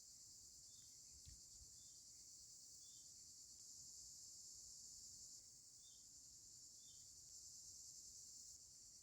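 Faint forest ambience: a steady high-pitched insect drone, with soft short chirps repeating about once a second.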